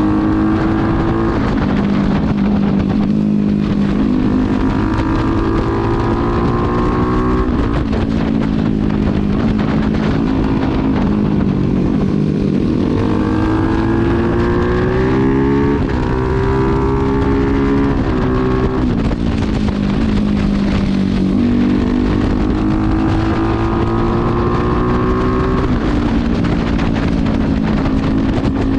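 Modified motorcycle engine under way, pulling through the gears: its pitch climbs for several seconds as it accelerates, then drops at each gear change, repeating several times. Wind rushes over the microphone, and a dB killer is fitted in the handmade exhaust.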